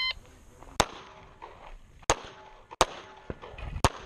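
A shot timer's start beep cuts off at the very start. Then a compact backup pistol fires four shots, spaced unevenly about a second apart, as the shooter engages targets in an IDPA stage.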